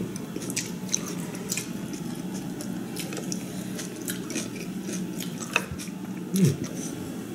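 A person chewing a mouthful of coleslaw, with soft crunching and small mouth clicks over a steady low room hum. A short voiced 'mm' comes near the end.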